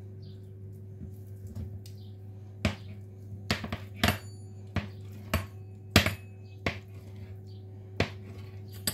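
About ten sharp, irregular knocks and taps on a tiled kitchen counter as a rolled log of yeast dough is cut and twisted into pieces by hand. They begin about a third of the way in, over a steady low hum.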